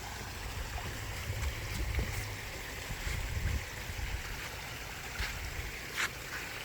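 Water from a garden pond waterfall splashing and running steadily, over a low, uneven rumble, with a few small sharp splashes or clicks, the clearest about six seconds in.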